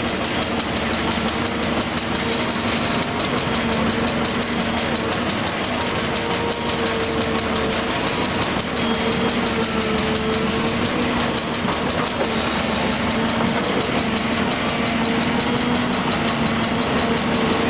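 Volvo EC210B excavator's six-cylinder diesel running steadily while the arm and bucket work, its drone wavering slightly in pitch over a constant rumble.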